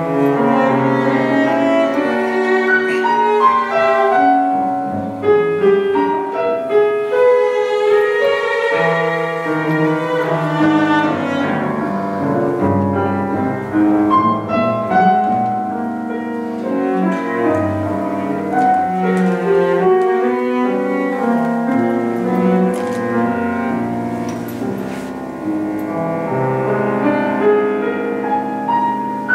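A cello and a grand piano playing a classical chamber piece together.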